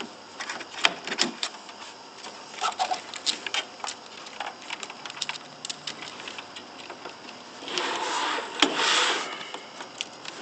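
Hands refitting the parts of a damper assembly: a string of small clicks and knocks of plastic and metal pieces, with a louder stretch of scraping and rubbing a little before the end.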